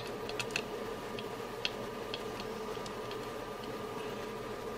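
Light, irregular clicks and ticks of a small screwdriver driving an M3 screw into a nut through a circuit board, with metal parts being handled, over a faint steady hum.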